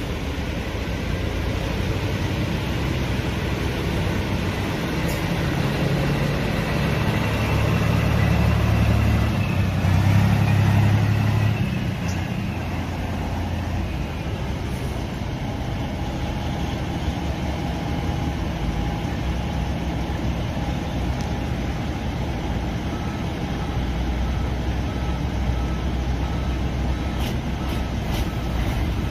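Heavy diesel truck engine idling steadily, growing louder for a few seconds about a third of the way in. A faint reversing beeper repeats in the last several seconds.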